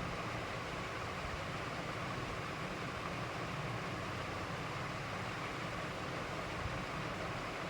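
Steady background noise: an even hiss with a low rumble underneath and no distinct events.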